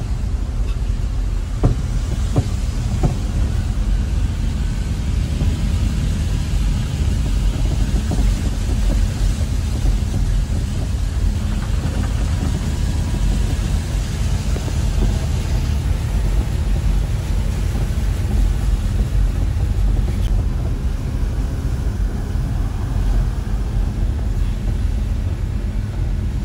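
Steady low rumble of a car driving on a rain-soaked road, heard from inside the cabin, with heavy rain on the bodywork and a few sharp taps about two seconds in.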